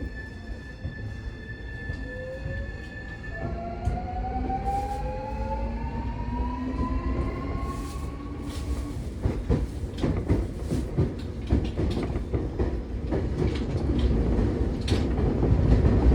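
Keio 1000 series train with a Toyo IGBT VVVF inverter and fully enclosed traction motors, accelerating away. A steady high inverter tone switches about three and a half seconds in to rising whines that climb for about five seconds. The whine then fades under wheel rumble and rail-joint clatter that grows louder toward the end.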